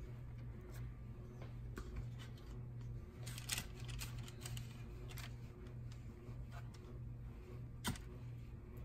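Table knife spreading butter over frozen dinner rolls on a parchment-lined sheet pan: faint scrapes and a few small clicks, over a low steady hum.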